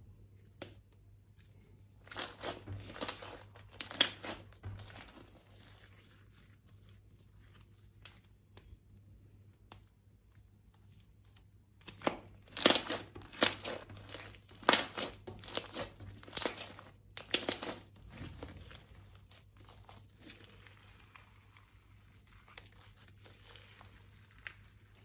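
Crinkling and crackling of plastic being handled, in short bursts. It comes in two spells: one about two to four and a half seconds in, and a louder one from about twelve to seventeen and a half seconds in, with faint handling noise in between.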